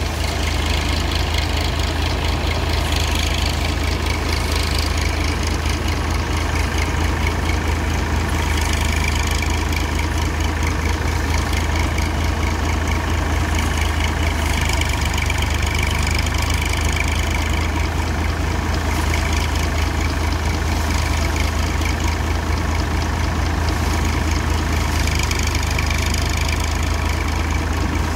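Tractor engine running at a steady speed, powering a paddy threshing machine: a constant low drone with an even mechanical rushing noise above it, unchanged throughout.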